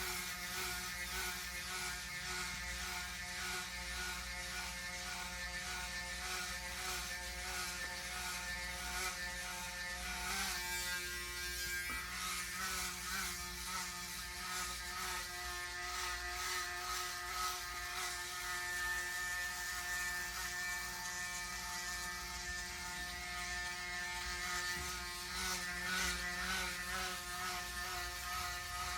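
Braun Series 9 Pro 9465cc electric foil shaver running with a steady buzzing whir as it is passed over the scalp, cutting about four days of head hair growth. It is running on a newly fitted motor.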